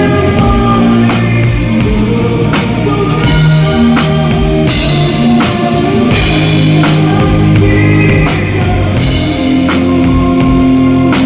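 Rock music with a drum kit playing along: regular snare and kick hits and cymbal splashes over sustained bass and guitar notes.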